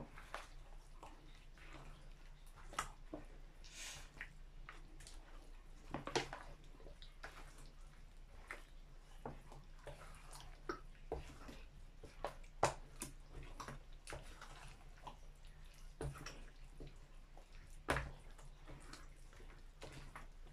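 Metal ladle and wooden spoon stirring wet, chili-coated kimchi vegetables in a large plastic basin: faint wet squelching and irregular clicks and scrapes of the utensils against the bowl.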